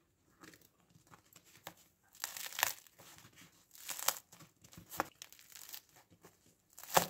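Crisp crust of a freshly baked wheat-rye loaf crackling as fingers squeeze it, in a series of short crackles about a second apart, the loudest near the end. The crackle is the sign of a very crisp, crusty loaf.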